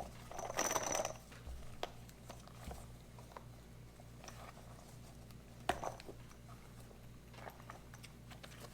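Packaging and small items being handled: a brief rustle about half a second in, then scattered light clicks and taps, over a low steady hum.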